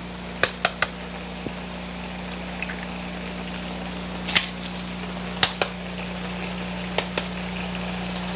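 Eggs being cracked one at a time: short, sharp taps of eggshell on a hard edge, three in quick succession near the start, then single taps and pairs about four, five and a half, and seven seconds in. A steady low hum runs underneath.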